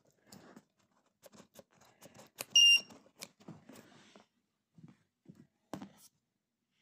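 Clicks and rattles of a 26700 lithium-ion cell being fitted into a clamp-style cell holder, with a single short, loud, high-pitched beep from the Pulsar 3+ battery charger about two and a half seconds in. A few soft knocks follow near the end.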